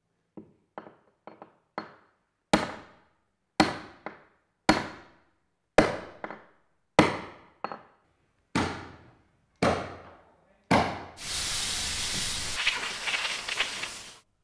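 A hammer striking fastenings in wooden deck planking: a few light taps, then about nine heavy blows roughly a second apart, each ringing briefly. About three seconds before the end, a steady hiss takes over.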